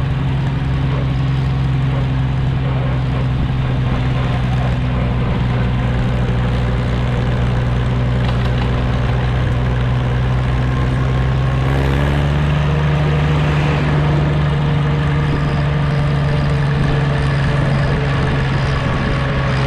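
Old tractor engine running steadily on the road, heard from on board, with a slight rise in engine speed about twelve seconds in.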